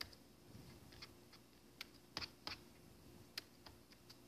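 Faint, irregular clicks of laptop keys being typed, about a dozen keystrokes with the loudest ones about two seconds in, over a faint steady hum.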